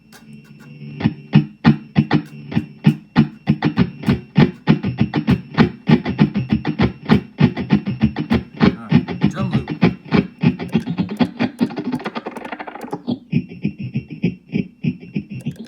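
Electric guitar through an Electro-Harmonix Deluxe Memory Man 550-TT bucket-brigade analog delay set fully wet with high feedback: quick plucked notes pile into dense, modulated repeating echoes. About thirteen seconds in the notes thin out and a steady high whine of clock noise stands out.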